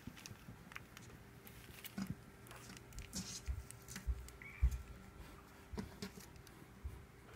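Four-week-old kittens scampering and scuffling on carpet and towels: light pattering of paws and rustling, with scattered low thumps, the loudest a little before five seconds in. One short, faint squeak a little after four seconds in.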